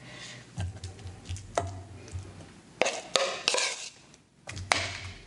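A spoon clinking and scraping against a mixing bowl and a metal muffin pan as batter is spooned into the cups, with several sharp, irregular knocks.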